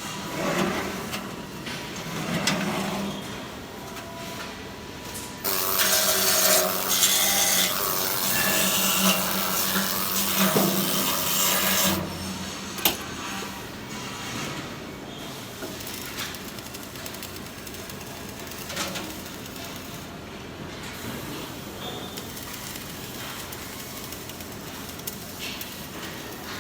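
Flux-cored arc welding on stainless steel: the arc runs as a loud, steady hiss for about six seconds, starting and cutting off suddenly, followed by one sharp click. Around it, quieter workshop noise with a low steady hum.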